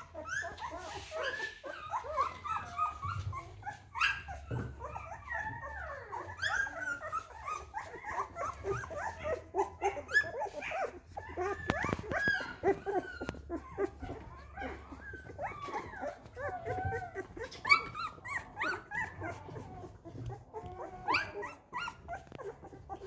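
Golden retriever puppies about a week and a half old whining and squeaking: many short, high cries that bend in pitch and overlap without pause.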